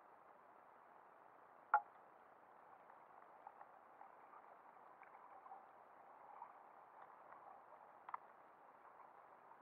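Faint, muffled underwater ambience picked up through a submerged camera: a steady hiss with scattered small crackles, and two sharp clicks, one about two seconds in and one about eight seconds in.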